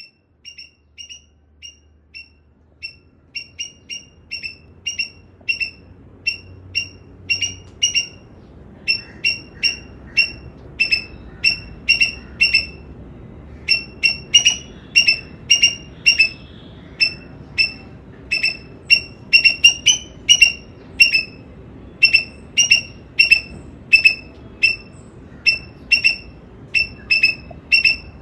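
Eastern gray squirrel barking: a long run of short, sharp, high calls at about two a second, faint at first and growing louder over the first few seconds, over a low background hiss.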